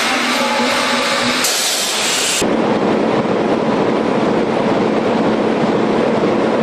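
Large 1050 PS Deutz ship's diesel engine: a loud hiss with a faint whine for about two and a half seconds, then abruptly the heavy, dense clatter of the engine running steadily.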